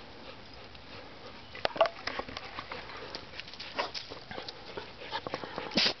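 A dog in a sneezing fit: after a quiet first second and a half, a rapid run of sharp sneezes and snorts, the loudest about two seconds in and another strong one just before the end.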